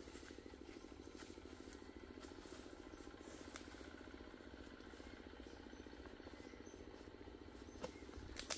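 A faint, steady engine-like drone with a fast, even flutter, with a few sharp clicks near the end.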